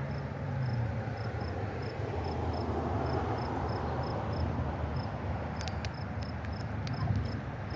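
A high, thin chirp repeating about three times a second, typical of a cricket, over a steady rush of flowing water, with a few sharp clicks about two-thirds of the way in.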